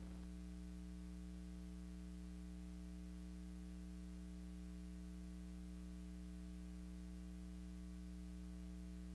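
Steady electrical mains hum with faint hiss, unchanging throughout: the noise floor of a silent film's transfer, with no soundtrack of its own.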